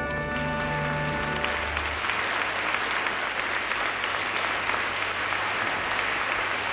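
Theatre audience applauding steadily, with the last chord of orchestral theme music ending under it about a second and a half in.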